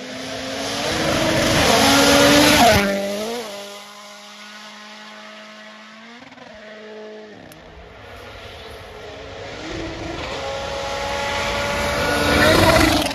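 Rally cars at full throttle on a gravel stage, engines high in the revs. One car passes close and loud about two and a half seconds in. A more distant car follows, its engine note dipping sharply in pitch a few times, and then another car comes on, growing steadily louder to a second peak near the end.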